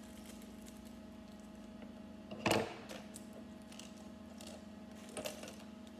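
Scissors and small plastic Lego parts bags handled on a wooden table: a sharp clatter about two and a half seconds in and a smaller one near the end, over a steady low hum.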